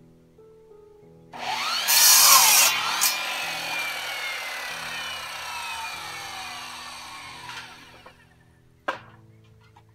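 Miter saw starting up and cutting through a wooden board about a second in, then the blade winding down with a falling whine over several seconds. A single sharp knock near the end.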